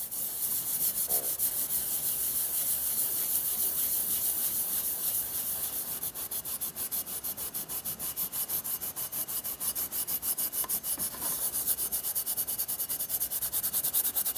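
A very fine Scotch-Brite pad scrubbed back and forth over a rusty double-bit axe head wet with WD-40, a rhythmic scratchy rubbing of abrasive on steel as the surface rust is knocked down.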